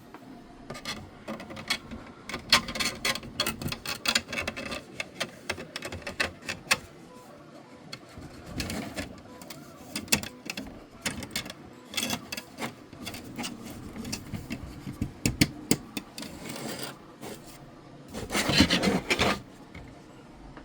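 3D-printed PLA parts being handled: hard plastic clicking, knocking and scraping as side panels are slid into the slots of the remote control holder, with a longer stretch of scraping near the end.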